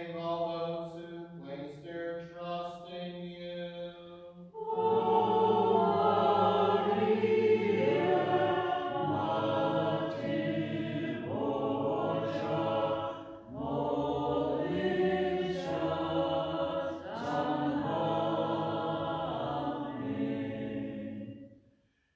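Byzantine-rite liturgical chant: a single voice chants a line, then about four and a half seconds in a group of voices takes up a sung response, singing several phrases together before stopping shortly before the end.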